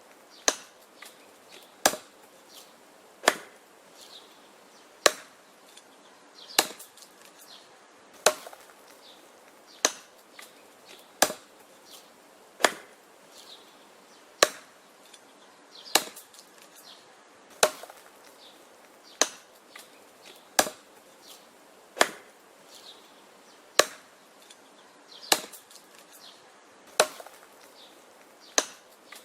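Wood being chopped: a sharp blow into the wood about every second and a half, each followed by fainter knocks and clicks.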